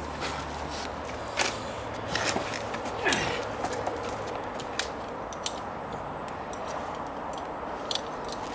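Scattered clicks and light knocks of a hand caulking gun being worked and stone parts handled, over a steady low hum that fades about three seconds in.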